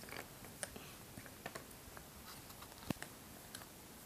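Faint taps and clicks of cardboard jigsaw puzzle pieces being picked up and set down on a table, with the sharpest tap just before three seconds in.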